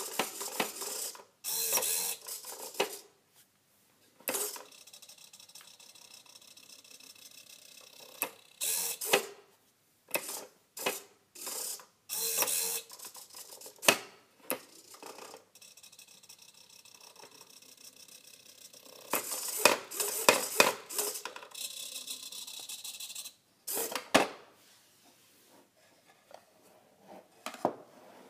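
Homemade wooden useless machine run by small hobby servos, cycling several times: the toggle switch clicks, a servo whirs as the arm pushes up through the lid and flips the switch back, and the wooden lid clacks shut. Near the end, the wooden box is handled and opened with light knocks and rattles.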